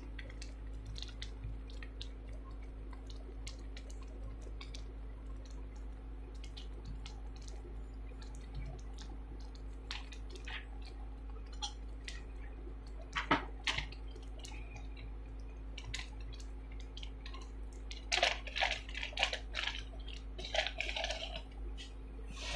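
Kimchi fried rice frying in a nonstick pan with cheese slices melting on top: scattered small crackles and pops over a steady low hum. There is a sharper clatter about 13 seconds in, and a cluster of louder knocks and rustles from about 18 seconds.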